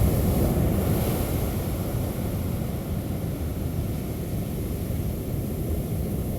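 Wind buffeting the microphone: a steady, low rumble that wavers in strength.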